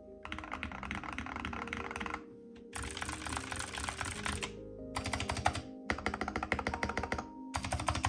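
Fast typing on mechanical keyboards in five bursts with short pauses between them, switching from one board to the other. One of the boards is a Skyloong SK64 with hot-swap optical switches. Soft background music plays underneath.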